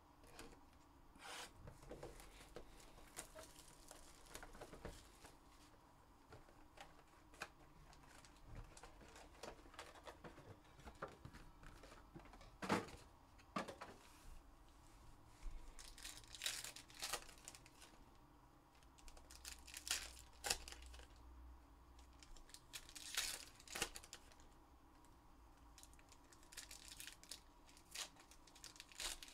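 Trading card packs being torn open and their wrappers crinkled, with soft handling of packs and cards in between. Short irregular rips and crackles, a handful of them louder in the second half.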